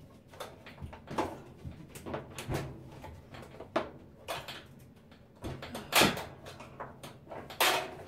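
Plastic control console of a Kenmore top-loading washer being pushed and pried by hand to free its retaining clips. It gives irregular plastic clicks, knocks and rattles, the loudest about six seconds in and a cluster near the end.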